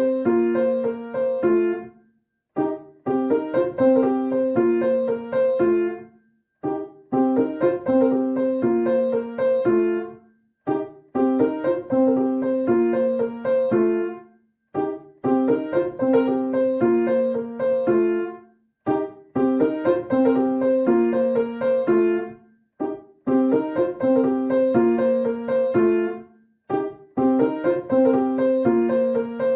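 Piano playing the iPhone ringtone melody: a short phrase repeated over and over, about every four seconds, with a brief pause between repeats.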